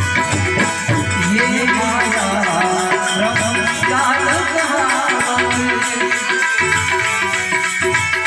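Gujarati devotional song (bhajan) played on harmonium with held reed chords and a quick tabla rhythm. A singing voice wavers and glides over it from about a second in until just past the middle.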